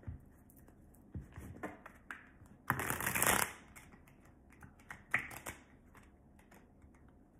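A deck of tarot cards being shuffled by hand: a few short bursts of cards flicking and sliding together, the longest and loudest about three seconds in.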